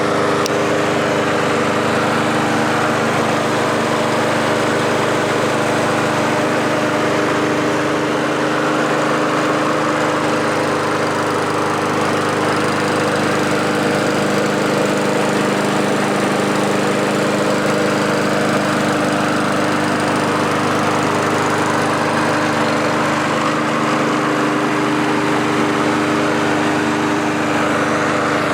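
Honda single-cylinder four-stroke engine on a walk-behind lawn mower running at a steady speed. It runs smoothly with no surging.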